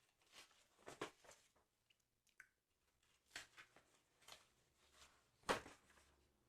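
Quiet, close-miked ASMR trigger sounds: a handful of brief, soft rustles and taps, the loudest about five and a half seconds in.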